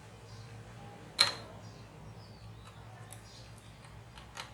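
A sharp small click about a second in, then a few faint ticks: a laptop processor being handled and set into its socket on the motherboard.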